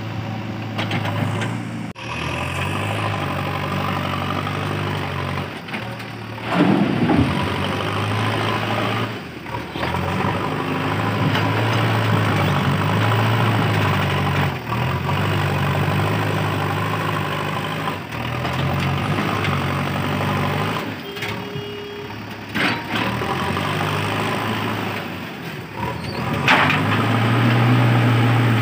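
JCB 3DX backhoe loader's diesel engine running under load, its pitch rising and falling as the machine digs and pushes soil. There is a brief loud surge about six and a half seconds in, and the sound breaks off and changes abruptly several times.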